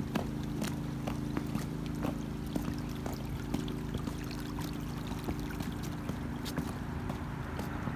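Pumped-out pond water trickling down a grass ditch, under a steady low hum, with scattered footsteps.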